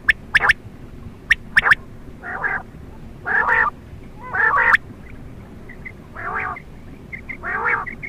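Quail calling: sharp, clicky notes, mostly in pairs, in the first two seconds, then five short calls about a second apart.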